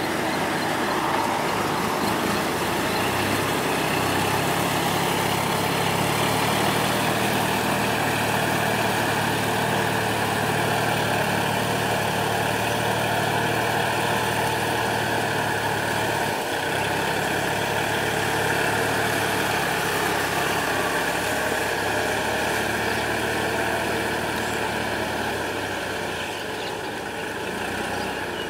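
Kubota tractor's diesel engine running steadily under load as it pulls a disc plough through a flooded paddy, growing slightly fainter near the end as it moves away.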